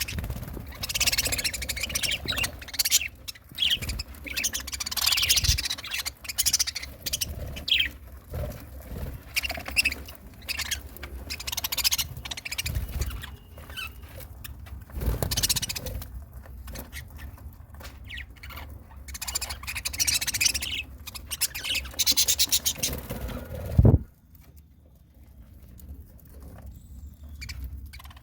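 Pet budgerigars chirping and chattering continuously in quick, high-pitched bursts, with scattered light knocks and one loud sharp knock a few seconds before the end, after which the chirping turns softer.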